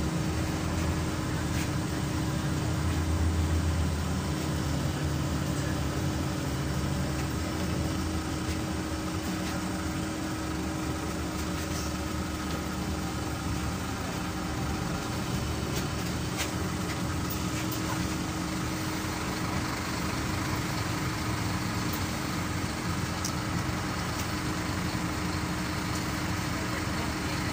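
Diesel engine of a 2009 Scania CN270UB city bus running with a steady low hum, heard from inside the passenger cabin. It swells louder for a moment a few seconds in, then settles lower and steadier, with a few faint cabin clicks.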